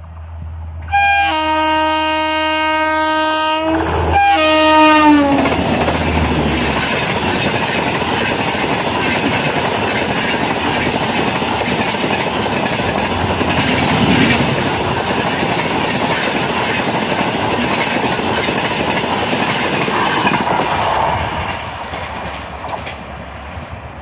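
WAP-7 electric locomotive's air horn sounding in two blasts, the second dropping in pitch as the locomotive passes. Then the LHB coaches run by at speed with a steady clatter of wheels on rails, fading near the end.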